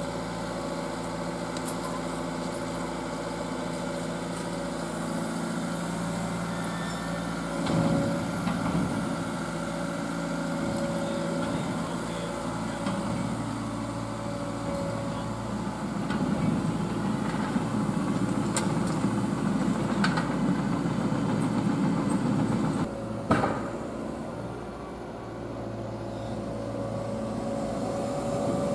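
Diesel engine of a Liebherr road-rail excavator running steadily. Its note shifts about eight seconds in and it works harder through the second half. A single sharp knock comes about three quarters of the way through.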